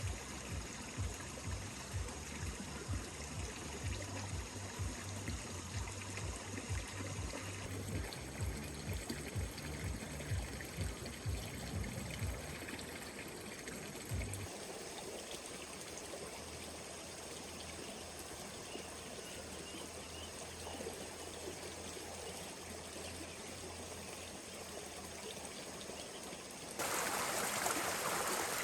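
Floodwater flowing steadily, with a rhythmic low pulsing under it for the first half. Near the end a louder rush of water cuts in suddenly.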